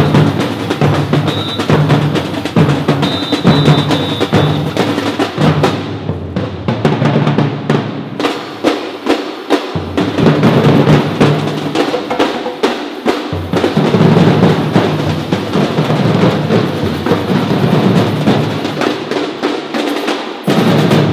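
A batucada percussion ensemble of bass drums and snare drums playing a driving rhythm together. The deep drums briefly drop out midway before coming back in.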